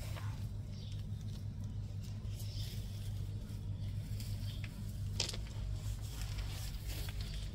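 A steady low hum runs throughout, with a few light rustles and clicks of rue stems and leaves brushing against a handheld phone. The sharpest click comes about five seconds in.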